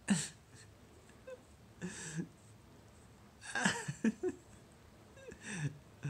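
A person's short, breathy vocal sounds: about four of them, a second or two apart, each falling in pitch.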